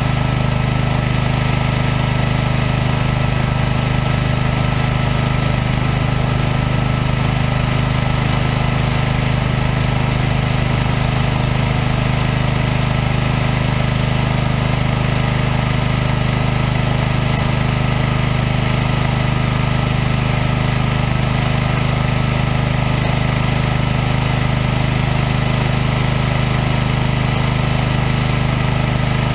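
Engine of working machinery running at a steady, constant speed: an even low hum that does not change.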